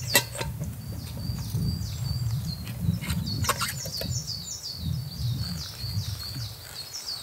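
A small bird singing a fast, steady run of short, high notes, each sweeping downward, over a low rumble. There are two sharp knocks, one just after the start and one about three and a half seconds in.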